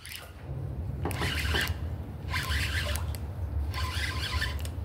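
A spinning fishing reel being cranked in three short raspy spells, over a low steady rumble.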